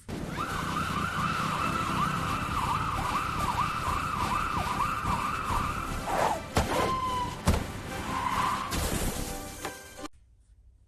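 Emergency vehicle siren in a fast yelp, sweeping up and down about two or three times a second over a steady low rumble. After about six seconds the yelp gives way to a few sharp knocks and short tones, and the sound cuts off about ten seconds in.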